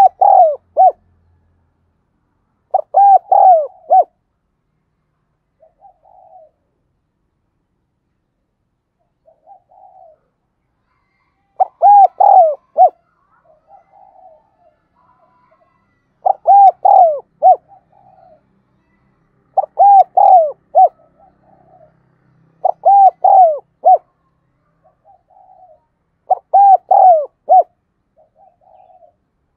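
Spotted dove cooing: the calling coo of a decoy bird, a loud phrase of several arched notes repeated every few seconds. Fainter short coos come in the gaps between phrases.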